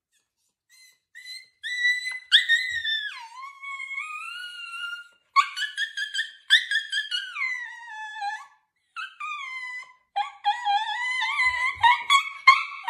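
Alaskan Klee Kai vocalizing back in a string of high-pitched, drawn-out whining howls that bend up and down in pitch, with short breaks between them.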